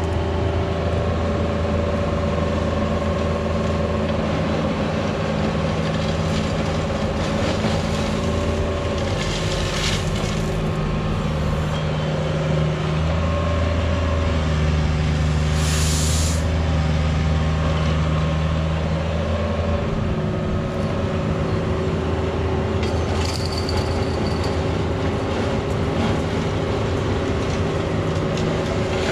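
Cat 304 mini excavator's diesel engine running steadily with the hydraulics working, its level shifting now and then as the arm and bucket move while levelling crushed stone. A few short hisses break in, the loudest about sixteen seconds in.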